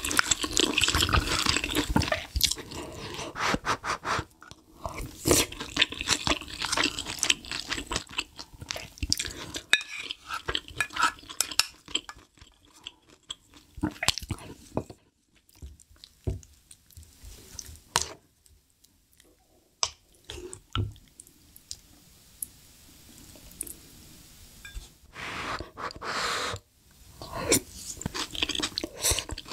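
Close-miked eating of spicy beef rib soup: slurping broth from a metal bowl and spoon, wet chewing, and small clicks of spoon and bowl. It goes quiet for several seconds in the middle, then the eating sounds resume near the end.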